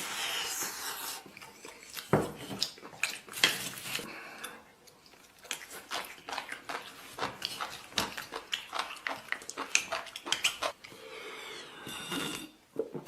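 A person eating: chewing and mouth noises, with utensils clicking against a bowl now and then.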